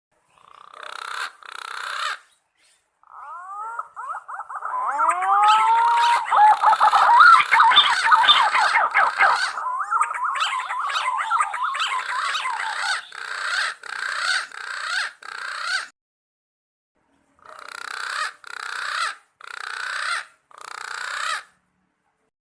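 Green pigeon (punai) calling: whistled, warbling notes with swooping pitch glides that build into a dense run. After a short pause it gives a few separate short calls near the end.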